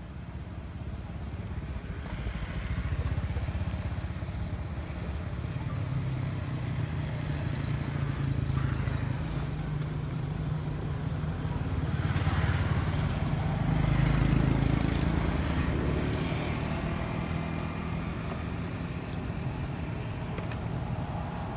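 Low rumble of a motor vehicle's engine running, swelling to its loudest about halfway through and then easing off. A brief high whistle, likely a bird, sounds about a third of the way in.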